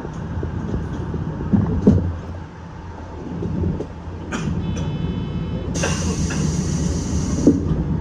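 Seibu 8500-series people-mover car standing at a platform with its equipment humming low, a few knocks about two seconds in, then a steady high electronic tone just past halfway. A loud hiss follows for about two seconds and ends near a thump.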